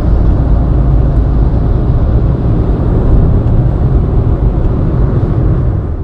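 Steady road and wind noise inside a car cruising at highway speed, a constant low noise.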